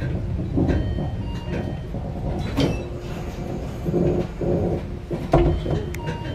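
Inside the cab of a JR 415-series electric train standing at a station platform: a steady low rumble with scattered knocks and clicks. The loudest is a sharp knock about five seconds in.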